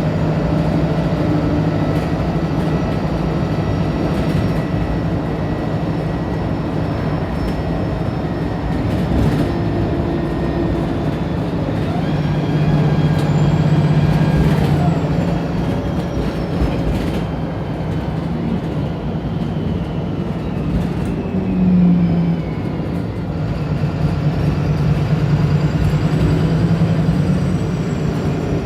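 Wright Pulsar single-deck bus driving, heard from on board: a steady engine drone under a high transmission whine that twice rises as the bus speeds up and falls away in between, with a few knocks and rattles.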